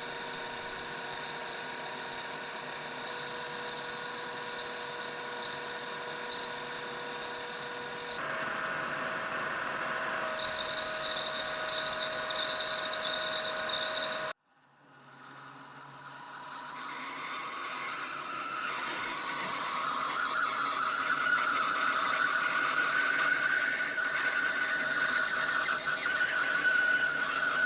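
Metal lathe machining a chunk of brass stock, with a steady high-pitched squeal from the cut. The sound cuts off abruptly about halfway through, then fades back in and grows steadily louder toward the end.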